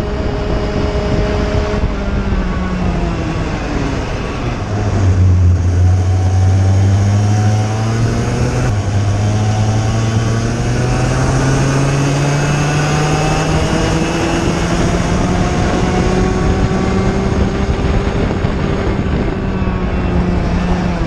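IAME Cadet kart's single-cylinder two-stroke engine on track: the revs drop over a couple of seconds as the kart slows for a corner, then climb slowly and steadily as it accelerates out and down the straight, with wind noise on the microphone.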